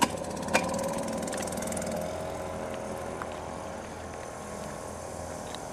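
Small outboard motor on an inflatable dinghy running steadily with a constant hum as the boat motors off across the water, fading a little as it moves away. Two short knocks sound in the first second.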